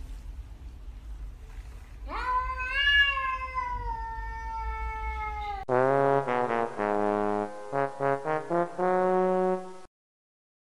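A cat's single long, drawn-out meow, rising and then slowly falling, starting about two seconds in and lasting about three and a half seconds. It is followed by a short burst of music that starts about six seconds in and cuts off abruptly near the end.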